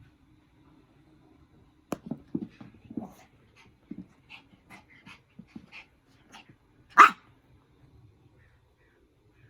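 Pomeranian during play: a run of short, quick dog noises for a few seconds, then one loud, sharp bark about seven seconds in.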